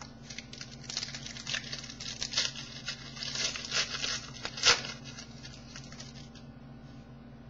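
Foil trading-card pack wrapper crinkling and tearing as it is opened by hand, a dense run of crackles from about a second in, with one sharp loud crackle near five seconds before it goes still.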